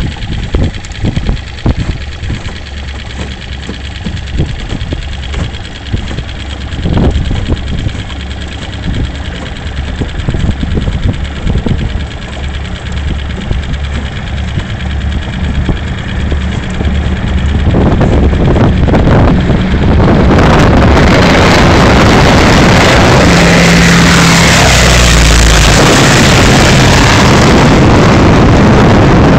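A boat's motor running steadily on the water, then from about two-thirds of the way through the roar of an amphibious firefighting water bomber flying low overhead builds up and drowns it out, very loud to the end.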